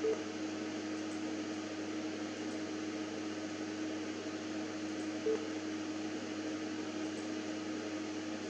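Steady machine hum from the running electronics bench, like a cooling fan or power supply: a constant mid-pitched tone over a low drone. Two brief faint blips come through, one at the start and one about five seconds in.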